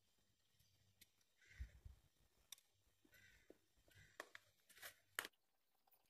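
Faint scraping and a few light clicks of a plastic spoon scooping frozen ice cream out of a plastic tub and into a glass bowl.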